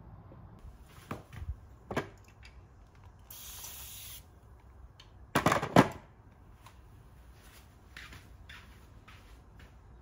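A spray bottle spritzed once, a hiss lasting about a second, set among handling knocks: a few light knocks before it and a louder clatter of two or three hard knocks a little after the middle.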